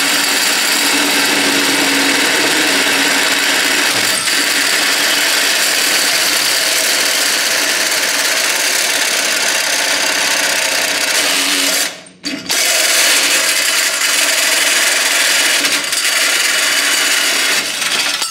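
Cordless drill spinning a hole saw that cuts through the sheet-metal radiator support, a steady grinding whir. It stops briefly about two-thirds of the way in, starts again, and stops near the end as the cut goes through.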